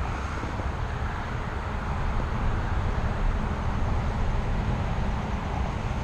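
Steady low rumbling noise of wind buffeting the camera's microphone.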